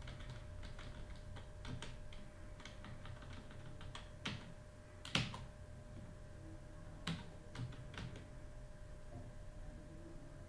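Computer keyboard typing: an irregular run of key clicks, with a few harder strokes in the middle.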